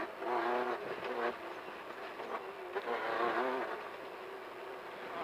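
Off-road race car engine heard from inside the car with a buzzy tone, the revs rising and dropping in spells as the throttle comes on and off. It is loudest in the first second and again around the middle, then settles lower.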